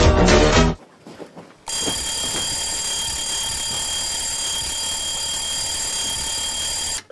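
Dance music stops abruptly; after a short pause an alarm bell rings continuously for about five seconds and then cuts off suddenly.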